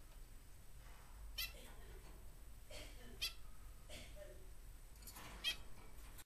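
Small diamond finches calling: short, high chirps repeated every second or two, the clearest three about a second and a half, three, and five and a half seconds in.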